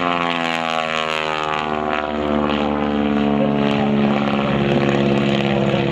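PT-17 Stearman biplane's radial engine and propeller droning in flight. The note drops in pitch over the first couple of seconds, then holds steady.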